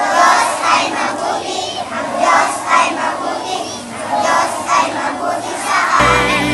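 A large group of children singing together in unison, in a rhythmic, pulsing chant-like song. About six seconds in, the sound cuts abruptly to music with a steady bass line.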